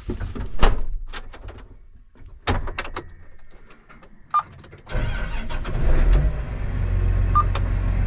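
Clicks and knocks, a short beep, then about five seconds in a John Deere tractor's diesel engine starts and runs steadily.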